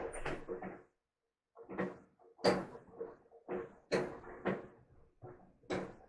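A person eating close to the microphone: a run of short chewing and mouth sounds, about two a second, after a brief pause near the start.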